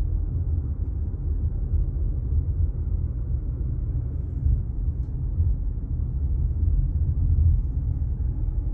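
Low, steady rumble of a car driving at low speed, heard from inside the cabin.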